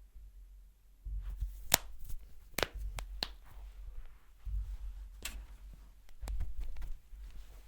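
Hands at work in a head massage: low rubbing and handling noise in stretches, broken by a handful of sharp clicks and slaps.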